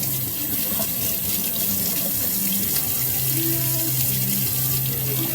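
Kitchen tap running steadily into a sink while dishes are washed.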